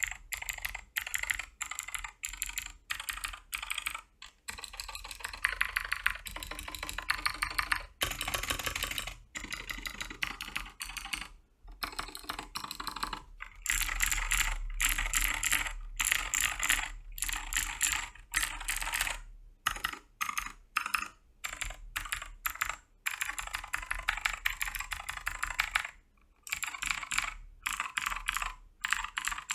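Keychron K4 mechanical keyboard being typed on: runs of quick keystroke clicks, fast and dense in stretches, broken by short pauses.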